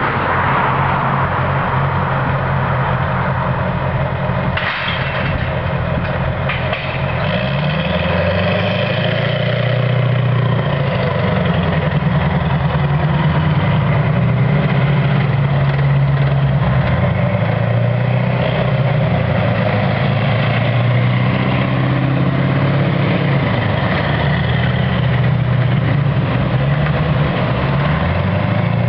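Tracked armoured military vehicles driving slowly past, their heavy engines running continuously with a low note that rises and falls as they throttle on and off.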